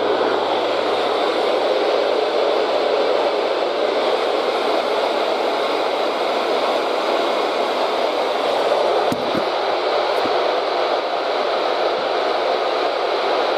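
Loud, steady FM static hiss from a weather radio receiver: the NOAA Weather Radio station KDO94 has gone off the air mid-test, leaving no signal. Two short clicks break through about nine and ten seconds in.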